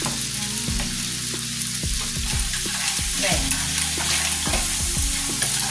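Cherry tomatoes and clams sizzling in olive oil in two frying pans, with a wooden spoon stirring and scraping, first the tomatoes, then about halfway through the clams. A steady low hum runs underneath.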